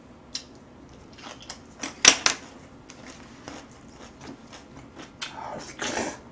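Close-up eating sounds: chewing on kimchi, a sharp clatter about two seconds in as chopsticks are set down on the table, then a spoon clicking and scraping in a paper cup of black-bean sauce noodles and rice, and a slurp from the spoon near the end.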